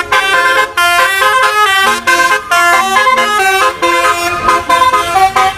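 Telolet bus horn playing a fast tune, a run of horn notes that jump from pitch to pitch several times a second.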